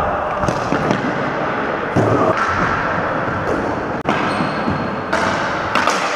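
Ball hockey play on a gym floor: about six sharp knocks of sticks and the plastic ball against sticks, goalie pads and the hardwood, each ringing briefly in the hall over a steady background of echoing gym noise.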